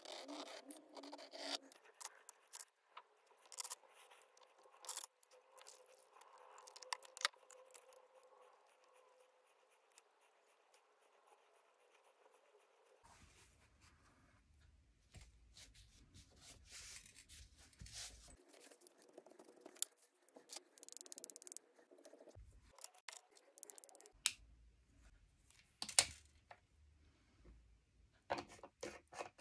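Quiet tabletop craft handling. For the first dozen seconds a brush pen scratches and taps on card. After that comes the rustle of a paper towel being handled, and near the end a few short sharp spritzes from a small spray bottle.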